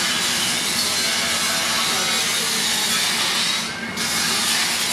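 Steady loud rushing hiss over the low hum of a fire engine's engine and pump running; the hiss drops out briefly about four seconds in.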